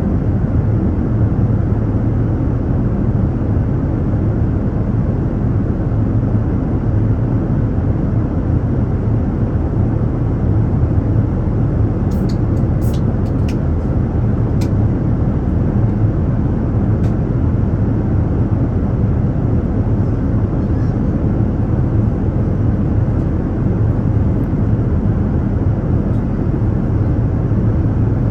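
Airliner cabin noise in flight: a steady, deep rush of engine and airflow, with a few faint clicks about halfway through.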